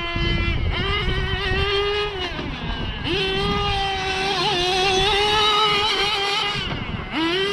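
Small nitro glow engine of a Kyosho Inferno GT2 RC car running at high revs, with the throttle lifted briefly about two and a half seconds in and again near the end, the pitch dropping and then climbing straight back up.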